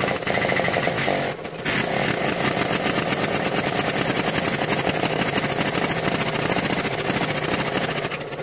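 Shop press pump running steadily with a fast, even pulse, with a brief dip about a second and a half in, as the press forces a new, tight-fitting radius arm bush into its housing.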